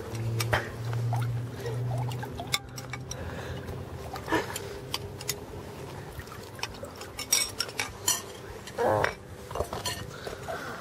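Metal spoons clinking and scraping against bowls as people eat, in scattered short clicks, with a brief vocal sound about nine seconds in.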